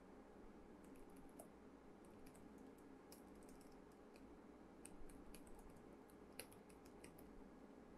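Faint typing on a computer keyboard: irregular runs of soft key clicks with short pauses between them.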